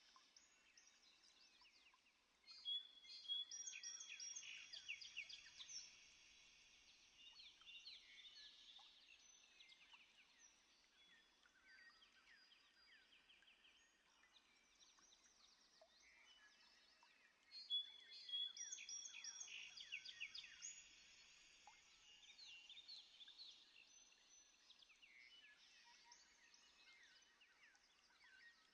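Faint chorus of many birds chirping and chattering, swelling louder about three seconds in and again about eighteen seconds in.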